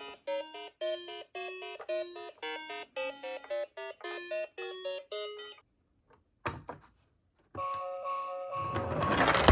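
A bell-like chime melody of short, fading notes, stopping about five and a half seconds in. After a short pause and a few clicks, steady held electronic tones start, and a rushing noise swells near the end.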